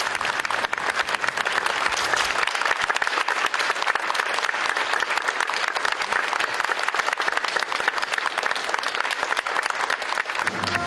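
Audience applauding steadily, many hands clapping together in a large hall.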